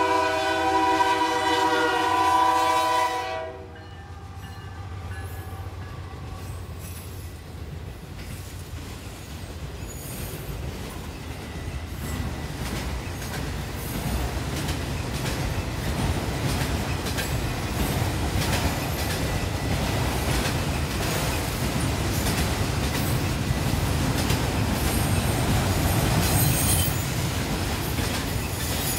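A freight locomotive's horn sounds one long chord blast of several notes at the crossing, cutting off about three seconds in. The train then passes close by with a growing rumble and the steady clickety-clack of wheels over the rail joints as the autorack and double-stack cars roll through.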